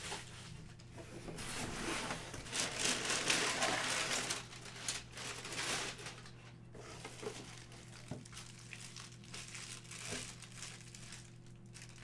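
Clear plastic wrapping crinkling and a cardboard box rustling as the box is opened and a plastic-wrapped item is handled, with the busiest rustling in the first half, over a faint steady hum.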